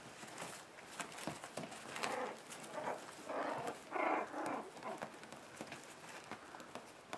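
Month-old puppies yipping in play: a quick run of short yips between about two and five seconds in, loudest near the four-second mark, over light scuffling of paws on the bedding.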